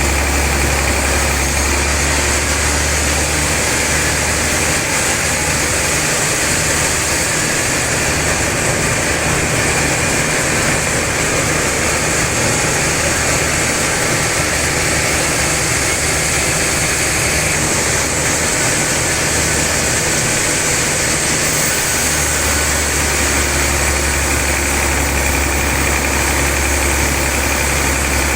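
Sawmill machinery running with a loud, steady drone and a low hum that wavers for a while in the middle, as when the saw takes load cutting a large log.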